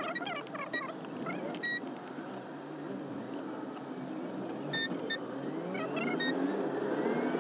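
Car engine and road noise heard from inside the car while driving slowly through traffic, the engine rising in pitch near the end as the car speeds up. Several short high beeps from the traffic around cut in along the way.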